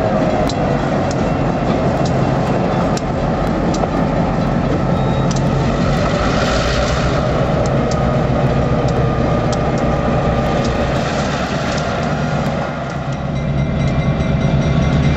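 EMD 567 diesel engines of a GP7u and GP9 locomotive pair running as the units move along the track, with scattered sharp clicks from wheels over rail joints. The engine sound swells over the last couple of seconds, with a strong low hum, as the lead unit comes closer.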